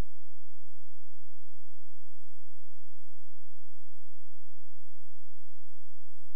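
Steady electrical hum made of a few fixed tones over a faint hiss, with occasional brief low thumps.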